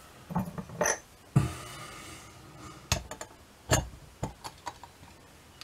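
Brass wheels and the mainspring barrel of a torsion clock movement clicking and knocking against the plates as they are fitted by hand: several short, sharp taps at irregular intervals, with a brief rustle of handling after one of them.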